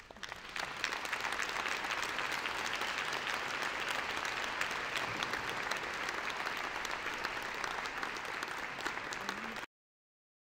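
An audience applauding steadily for about nine seconds, then cutting off suddenly near the end.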